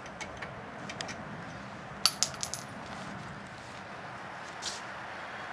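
A quick cluster of about four sharp metallic clinks with a brief ring about two seconds in. A few lighter clicks come before it, and one more comes near the end.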